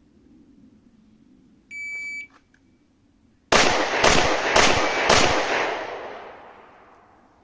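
A shot timer beeps once, and about a second and a half later a pistol fires four shots roughly half a second apart, ending a string the timer reads at 3.40 seconds. Each shot echoes, and the last fades out over about two seconds.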